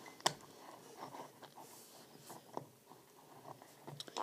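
Plastic 3x3 speed cube pieces clicking and tapping as they are handled and fitted together by hand, with one sharp click just after the start and a few fainter taps after it.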